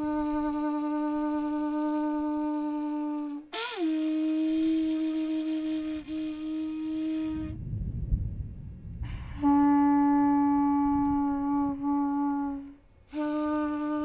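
A horn trumpet blown in long held blasts on one steady note, four in a row, each lasting about three to four seconds. The second blast opens with a quick upward scoop in pitch. A low rumble fills the pause before the third.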